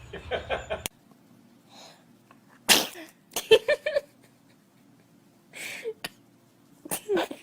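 Baby sneezing several times, sharp sudden sneezes about three seconds in and again near the end, with a softer one shortly before the last. Short little baby vocal sounds come between them.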